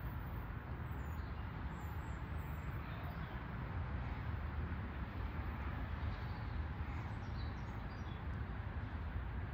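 Steady low outdoor rumble of background noise, with a few faint bird chirps scattered through it.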